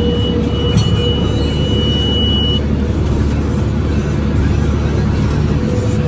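New Holland T5060 tractor's diesel engine running steadily under load while pulling a New Holland BR7060 round baler that is taking up hay, a constant mechanical drone heard from the cab. A steady high electronic beep sounds through the first two and a half seconds or so.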